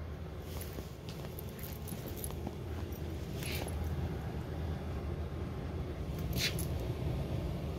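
A bunch of keys jingling briefly twice, about three and a half and six and a half seconds in, over a steady low rumble.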